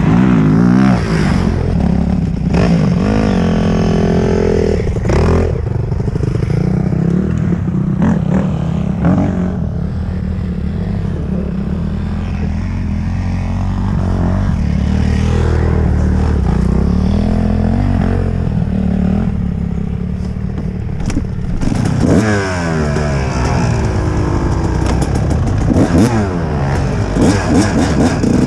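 Kawasaki KX dirt bike engine running and being revved, its pitch rising and falling again and again with the throttle, with harder, quicker revs in the last few seconds as the bike rides off along a dirt trail.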